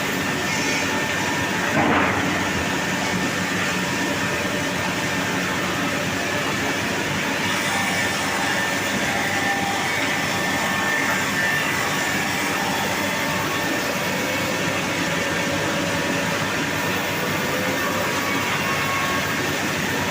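Single rip saw machine running steadily, a dense mechanical noise with a faint steady whine, briefly louder about two seconds in.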